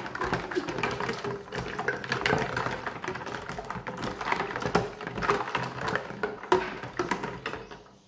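Plastic feeding-bottle parts knocking and clattering against each other and a plastic basin as hands work them in soapy water: a rapid, irregular run of small clicks and knocks that dies away just before the end.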